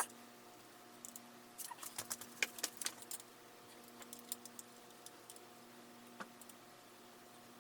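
Light metallic clicks and clinks of hand tools on the fork's clamp bolts as they are tightened. There is a sharp click at the very start, a quick irregular cluster of clicks about two to three seconds in, then scattered single ticks.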